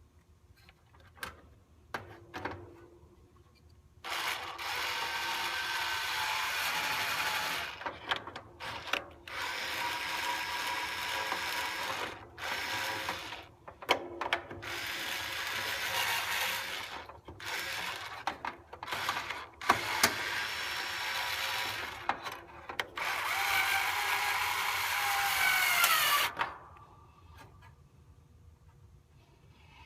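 A power drill running in five bursts of a few seconds each, with clicks and knocks between them, while a hard start kit's relay is mounted in an AC condenser unit. The last burst winds down in pitch as it stops.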